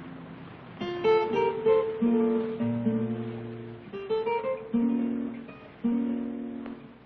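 Acoustic guitar playing a slow, gentle tune: short runs of plucked notes and chords that ring out and fade between phrases.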